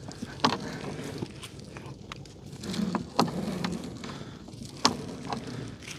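Scattered light knocks and clicks from a gill net being handled and hauled in a small boat, a handful of sharp taps at irregular intervals over a low background noise.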